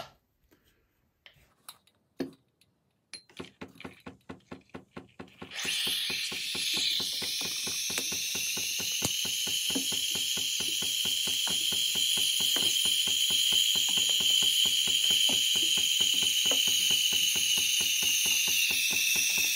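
KitchenAid Artisan espresso machine steaming milk through its steam wand. A click comes about two seconds in, and rapid even ticking from the machine's pump starts about three seconds in. A couple of seconds later a steady, loud steam hiss joins as the wand froths the milk in the glass, with the ticking running on underneath.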